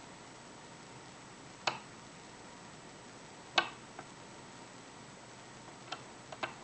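Hook pick working the pins of an Evva euro cylinder under tension: a few scattered sharp metallic clicks, the loudest a little past halfway and a quick cluster of three near the end.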